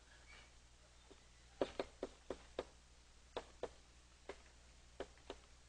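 Chalk writing on a blackboard: a string of faint, sharp taps, irregularly spaced, over a low steady hum.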